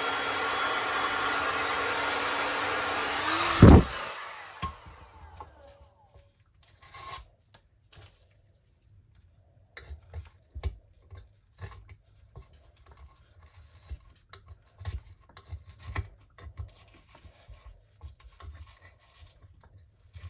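Heat gun blowing steadily with a faint whine, cut off with a loud click about three and a half seconds in. After that come scattered light scrapes and taps as a hand tool works the softened resin edge on the board.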